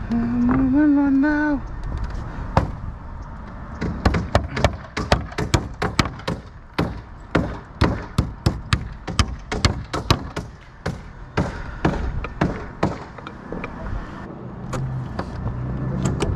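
Hand hammer driving nails into new pine boards laid over the old plank roof deck: a quick, steady run of sharp strikes, roughly two to three a second, starting about four seconds in.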